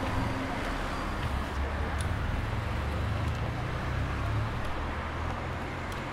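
Street traffic: a steady low road rumble, with a car passing near the end.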